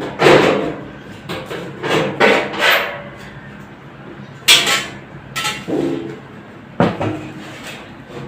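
Irregular knocks and clatters of metal parts being handled and struck, about a dozen hits of varying strength, some ringing briefly; the loudest come about half way and near the end.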